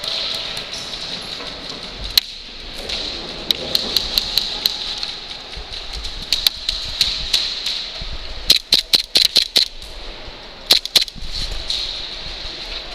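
Airsoft guns firing: scattered single shots, then a rapid burst of about eight shots about eight and a half seconds in and a few more near eleven seconds, over a steady hiss.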